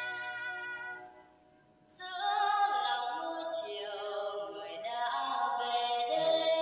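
Music played through a Yamaha CRX-040 mini hi-fi system from a docked iPod. An instrumental phrase fades to a short near-silent gap about a second in, then a singing voice with wide vibrato comes in over the accompaniment.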